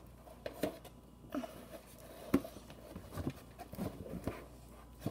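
Faint scattered taps and small knocks from a homemade cardboard-box vending machine being handled and turned.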